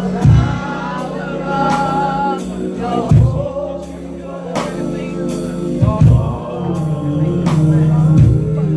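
Gospel worship song sung by a church congregation and choir, with sustained keyboard chords, cymbals and a deep bass-drum beat about every three seconds.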